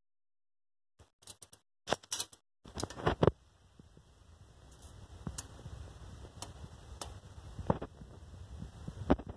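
Close handling sounds starting about a second in: a quick run of sharp clicks and knocks, the loudest just before the three-second mark, then a low rumble of hand-held handling with occasional single clicks as a steel tape measure is held against the truck's chassis.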